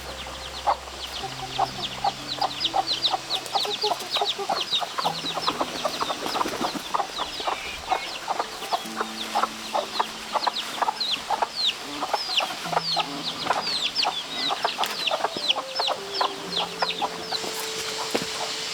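A flock of chickens calling: many quick, high, falling peeps overlapping throughout, with lower clucks mixed in.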